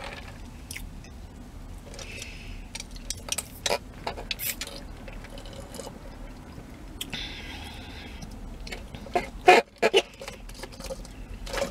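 Sipping a soft drink through a straw from a paper fast-food cup: sucking and slurping with small clicks and rustles of the cup and lid, over a steady low hum. The loudest moment is a pair of sharp clicks a little after nine seconds.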